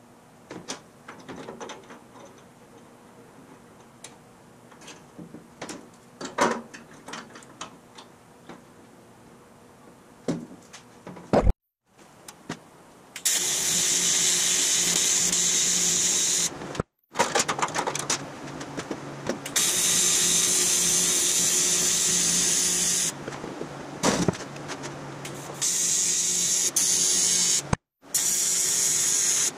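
A TIG welding arc on an aluminium fuel tank, a steady loud buzzing hiss with a hum running through it as the filler-neck bung is welded in, stopping and restarting a few times. Before the welding starts, about halfway in, only faint clicks and taps as the bung is handled and fitted.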